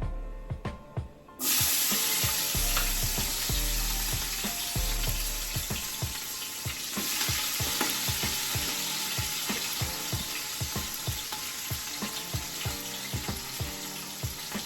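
Seasoned cabbage dropped into a pot of hot oil: a loud sizzle starts suddenly about a second and a half in and slowly dies down. Faint background music underneath.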